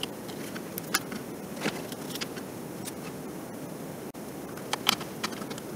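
Scattered light clicks and taps of small plastic headset parts and a hand tool being handled, over a steady hiss.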